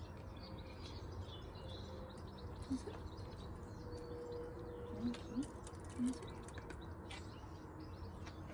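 Small garden birds chirping and twittering, with a few short low coos from a dove about three, five and six seconds in.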